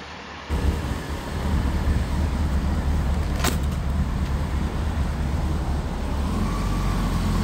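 Vehicle being driven on the road, heard from inside: a steady low rumble of engine and road noise that comes in abruptly about half a second in, with one brief click midway.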